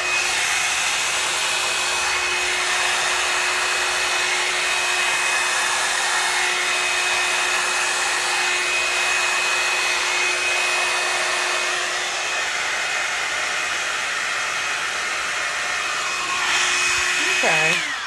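Revlon Salon paddle-brush hair dryer and styler running on its low setting while passed through a section of hair: a steady rush of blown air with a constant whine. It cuts off near the end, its whine dropping in pitch as it stops.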